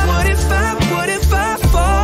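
Background pop music: a melody over a strong, steady bass beat.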